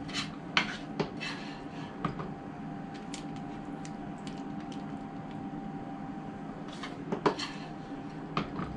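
A spoon scraping and knocking against a skillet as meat filling is scooped out and pressed into pepper halves on a foil-lined tray: scattered short knocks, the loudest about seven seconds in, over a steady low hum.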